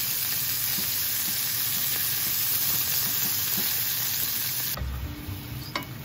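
Pork-wrapped green bean rolls sizzling in oil in a frying pan, a steady dense sizzle. It cuts off abruptly about five seconds in, and soft music starts.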